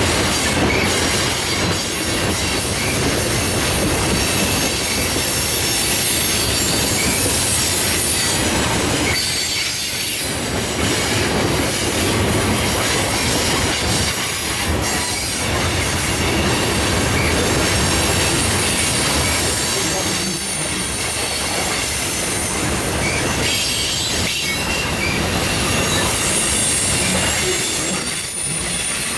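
Freight cars rolling past at close range: a steady rumble of steel wheels on rail with a high squeal from the wheels, as tank cars give way to boxcars.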